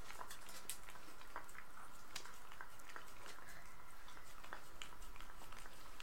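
Shiba Inu dog eating meat: scattered small clicks and smacks of chewing, over a faint steady hum.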